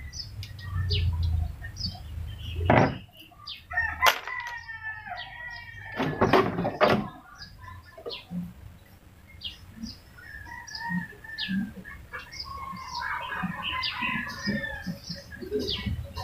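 A rooster crowing once, about four seconds in, with more bird calls later. Scattered knocks and clicks come from the plastic back cover of a CRT television being taken off.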